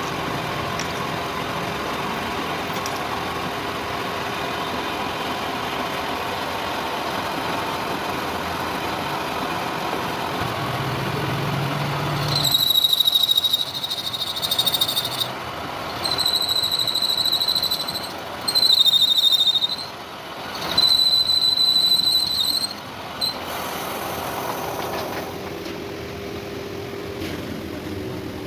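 Lathe running steadily, then the boring tool squealing four times as it cuts into the washer's bore, each squeal a high, steady screech lasting about two seconds with short pauses between, before the lathe runs on alone.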